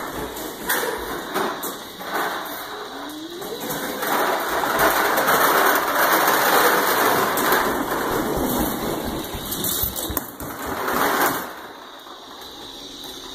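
Plastic Fisher-Price toy lawnmower pushed across a hardwood floor, its wheels and mechanism rattling and clattering. The clatter is thickest in the middle and dies down near the end.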